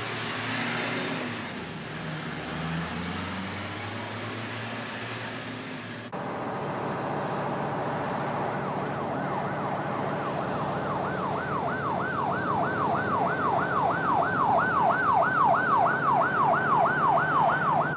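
A vehicle engine running with traffic noise; after a cut about six seconds in, a police siren sets in, wailing in fast rising-and-falling sweeps about three a second and growing louder toward the end.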